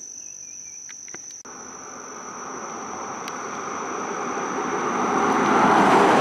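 A car approaching and passing close by, its tyre and engine noise swelling to a peak near the end and then fading. Under it, insects drone steadily on one high note.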